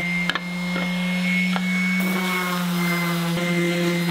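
Electric random orbital sander running steadily with a motor whine as it sands a small oak board, with a short click about a third of a second in.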